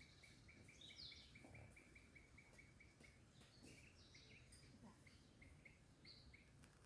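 Faint rainforest ambience with birds calling: one gives a quick run of short, evenly repeated chirps, about five a second, that thins out after about three seconds, and a few higher calls come in between.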